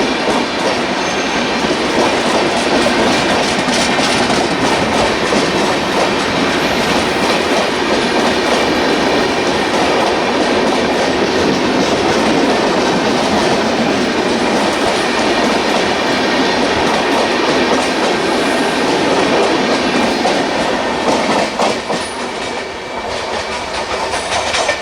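Passenger coaches of an express train rolling past at speed: a loud, steady rumbling noise of the wheels on the rails, with faint repeated clicks. The noise drops away a few seconds before the end.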